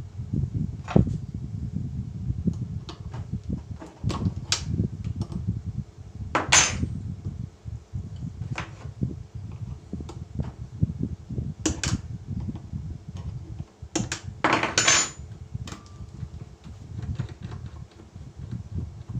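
Irregular knocks and clatter of tools and wood being handled, with two short scraping bursts, over a low rumble; no router motor is running.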